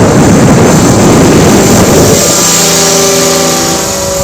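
Heavy wind buffeting the microphone, easing about halfway through. A steady, evenly pitched hum from a radio-controlled scale helicopter running then comes through.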